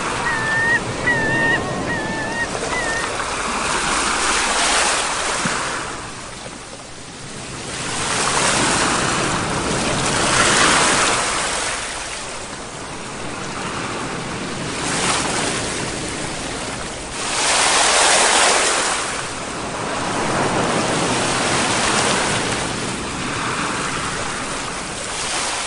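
Sea waves breaking and washing up the shore, swelling and ebbing in surges every few seconds, the biggest washes about 10 and 18 seconds in. A bird gives a few short chirps at the start.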